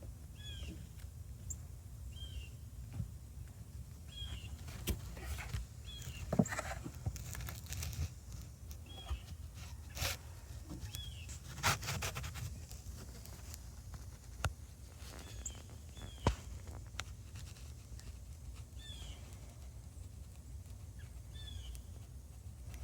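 Ice pellets ticking on leaves and the ground in scattered sharp clicks, while a bird gives short, falling chirps every second or two. A low steady rumble runs underneath.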